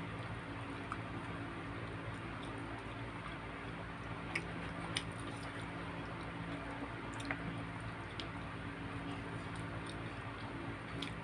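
Eating sounds: fingers tearing apart saucy chicken and wet chewing, with a few sharp little clicks over a steady low hum.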